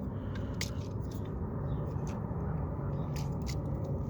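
Scattered light clicks and scrapes of stiff wires and an outlet being pushed into an outdoor electrical box, over a steady low background rumble.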